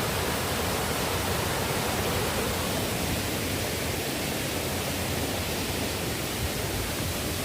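Steady rush of falling and flowing water from a nearby waterfall and its stream, an even, unbroken noise.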